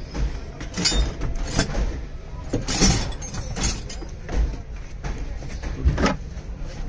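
Irregular metal clunks and scrapes as a bare engine block with flywheel and clutch is shifted into place against the gearbox input shaft, a knock every second or so.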